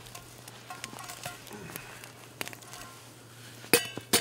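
Metal camp cookware clinking: a few light clicks and rattles, then two sharp, ringing metallic clinks near the end, over a steady low hum.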